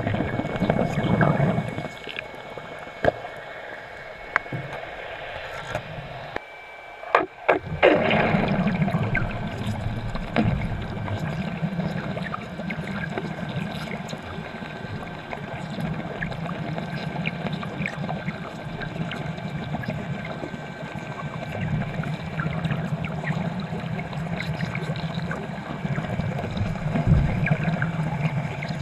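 Underwater bubbling and gurgling around a diver. It is quieter for a few seconds, with a burst of sharp clicks about seven seconds in, then steady again.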